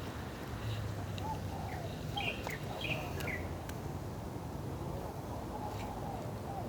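A bird chirping a handful of short notes about two to three seconds in, over a steady low background rumble.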